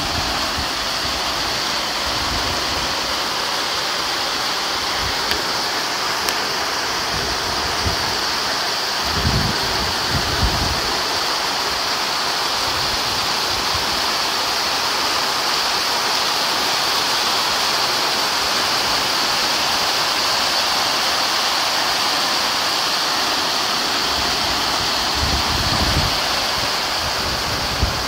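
Heavy rain pouring steadily: a dense, even hiss of rainfall and running water. A few brief low rumbles come through, about nine to ten seconds in and again near the end.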